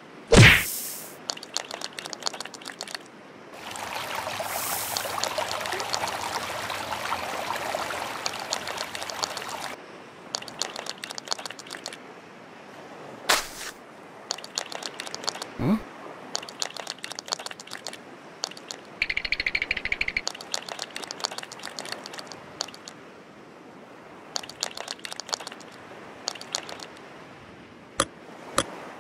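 Sound effects for a stop-motion scene: quick scattered clicks and taps of a small crab scuttling, a falling swoosh near the start, and about six seconds of steady rushing noise a few seconds in.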